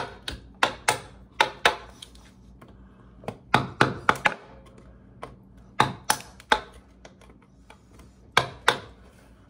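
Hammer striking a long screwdriver to chip the remains of an old glued-in PVC toilet flange out of the drain pipe: sharp taps in short runs of two to four, with pauses between, worked gently so as not to crack the pipe.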